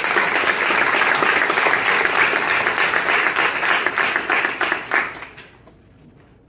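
An audience applauding, the clapping fading out about five seconds in.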